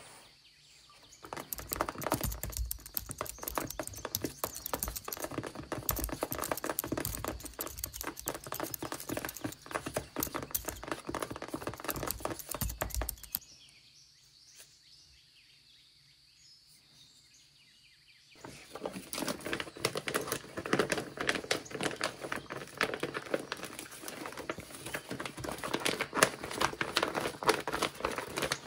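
Rapid tapping and scratching of long paper fake nails on a handmade paper laptop keyboard, a dense run of light clicks with paper rustle. About halfway through it stops for around five seconds, then paper rustling and tapping resume as paper pieces are handled and slid about.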